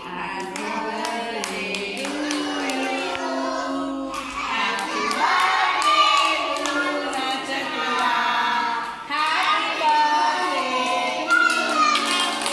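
Singing with held notes, accompanied by a steady beat of sharp taps keeping time.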